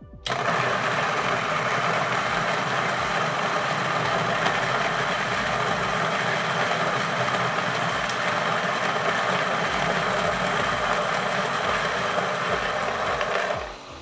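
Niche Zero conical-burr coffee grinder grinding a 20 g dose of coffee beans on an espresso setting. The motor starts abruptly, grinds at a steady level for about thirteen seconds, then stops near the end.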